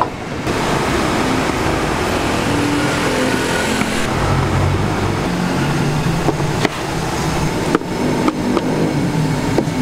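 Street traffic noise, with a motor vehicle engine running close by from about four seconds in, and a few light knocks.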